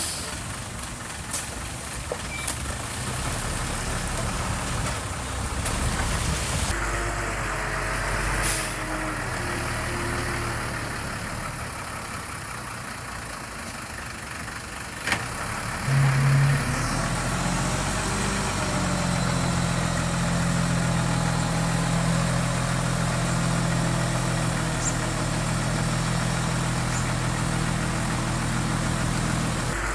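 Diesel engines of heavy construction machinery running, changing sharply in sound several times, with a louder, steadier engine note from about sixteen seconds in.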